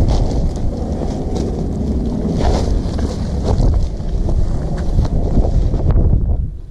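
Wind buffeting the microphone: a heavy, steady low rumble that drops away briefly near the end.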